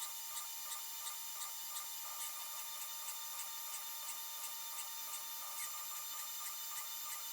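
Small CNC mill cutting brass dry, without coolant: a steady high whine with light ticks about three times a second.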